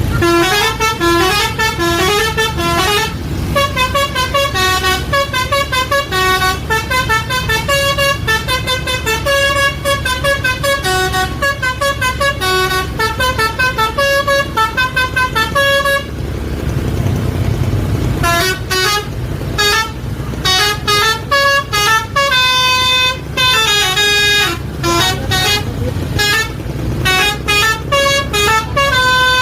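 Basuri 'telolet' multi-tone bus horn playing quick, jingle-like tunes of short notes over a running bus engine. The tune breaks off for about two seconds a little past halfway, then starts again.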